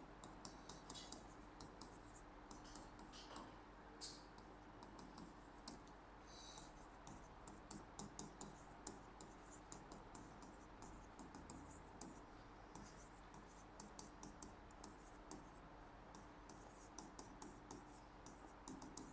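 Faint, irregular scratching strokes of writing on a board, over a low steady hum.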